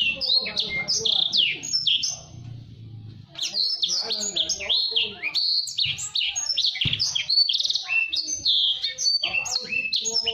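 Blacksang, a blackthroat × sanger hybrid songbird, singing a fast, tightly packed run of high chirps that swoop up and down in pitch, with a short break about two seconds in.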